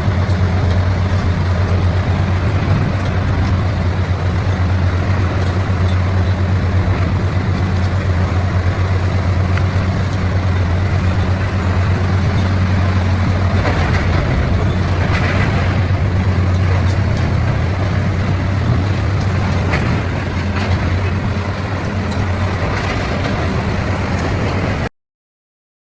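CBI 6400 CT horizontal grinder running, a steady low diesel drone under a rough, continuous grinding noise, with brief louder surges in the middle; it stops abruptly near the end.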